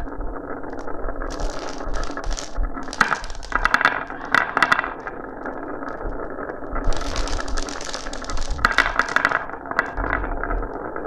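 Glass marbles rolling and clattering down a marble run: a continuous rolling rattle with several bursts of sharp clicking and clinking as the marbles knock together and drop.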